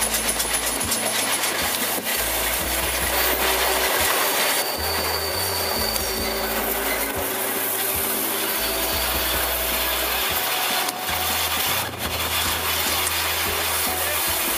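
Steam locomotive running along the track, heard from its cab side: a continuous hiss and rush of steam and motion, with wind buffeting the microphone. A fast, regular beat in the first couple of seconds gives way to a steadier rush as the engine rolls on.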